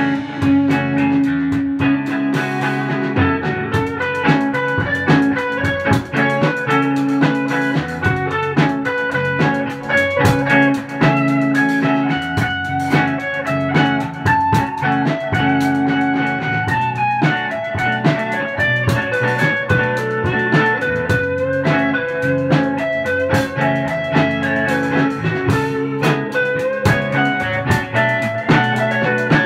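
Electric guitar, a Fender Stratocaster through a Fender Princeton Reverb amp, playing over a drum kit in an instrumental jam.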